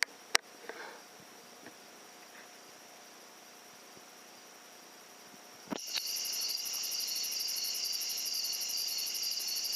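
A single sharp crack half a second in. From about six seconds in, a loud steady chorus of crickets at night, with a fast even pulsing trill, starts abruptly and keeps on.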